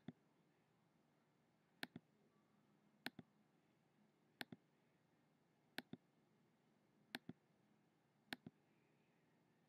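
Computer mouse button clicked seven times at an even pace, about one click every 1.3 s, each a quick press-and-release double tick, over quiet room tone.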